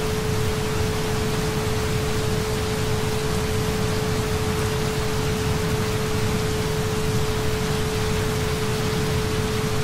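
Steady rain recording with a constant pure tone near 432 Hz running under it, the tone the uploader puts into every subliminal.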